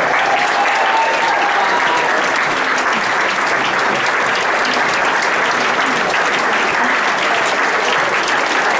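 A roomful of people applauding, dense steady clapping throughout, with one drawn-out high call rising over it near the start.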